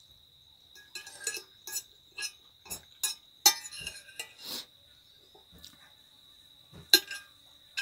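A fork clinking and scraping against a plate, with chewing, in a dozen or so short irregular clicks; the sharpest come about three and a half and seven seconds in. Under them a steady high insect trill runs on.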